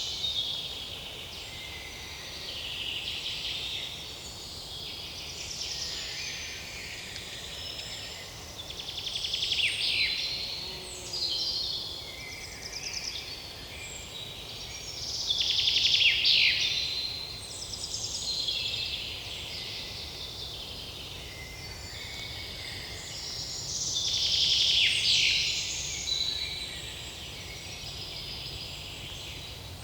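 Several songbirds singing and chirping at once in a quiet forest, their high songs overlapping throughout. Three louder songs with falling trills stand out from the rest.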